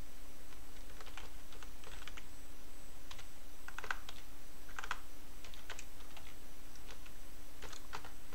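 Computer keyboard being typed on: short irregular runs of key clicks with brief pauses between them, over a faint steady hum.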